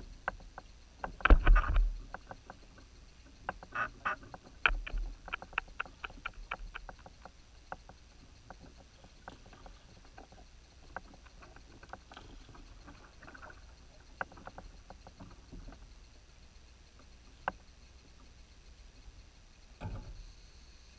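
Knocks and clicks from a plastic fishing kayak and the angler's rod and reel as he casts and fishes: a heavy thump about a second in, a quick run of ticks a few seconds later, then scattered clicks and a second thump near the end.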